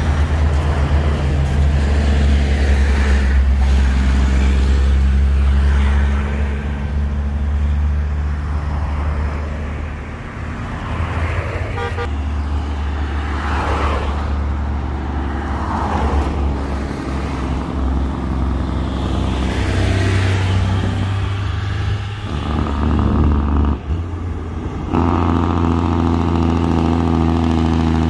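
Heavy diesel truck engines and passing road traffic. A low, steady diesel drone fills the first part, a couple of cars swish past in the middle, and about 25 seconds in a second big rig's engine comes in louder as it approaches.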